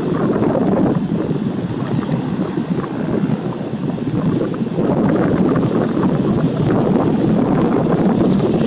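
Wind buffeting the microphone as a rough, fluctuating rush, over the steady noise of a Boeing 737-800's CFM56-7B jet engines at taxi idle.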